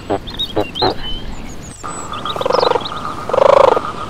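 Animal calls with bird chirps above them. First come short pulsing calls about twice a second. After a sudden change near the middle, longer and louder pulsing calls follow about once a second over a steady high tone.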